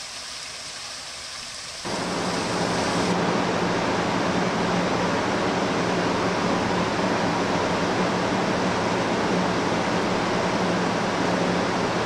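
Water trickling down a small rock cascade into a stream. About two seconds in, it gives way to the louder, steady splash of a statue fountain's spout falling into its basin, with a low steady hum underneath.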